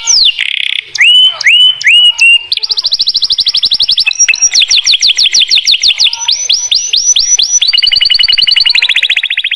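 Domestic canary singing a long, loud song. A few slurred downward-sliding notes open it, then come rapid trills of about a dozen notes a second, switching to a new pitch every second or two.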